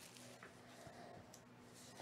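Near silence, with faint handling of a shrink-wrapped cardboard card box: a couple of light ticks as it is turned over, over a faint steady hum.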